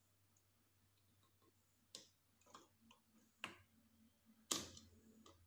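Faint scattered clicks and taps of multimeter test probes touching solder points on an induction cooktop's power-supply circuit board, about half a dozen, the sharpest about four and a half seconds in, over a faint low steady hum.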